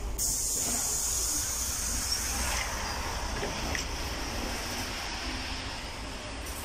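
Inside a moving city bus: a steady low rumble of the vehicle underway, with a loud airy hiss that sets in suddenly at the start and slowly fades.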